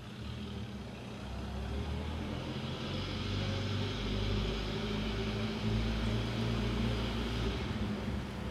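Vintage car's engine running at low speed as the car rolls slowly closer, growing gradually louder.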